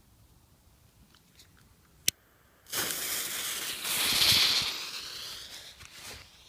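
A single sharp click about two seconds in, then the lit fuse of a Superböller II firecracker burns with a loud hiss of spraying sparks. The hiss swells to its loudest about halfway and fades near the end, the fuse burning down before the charge goes off.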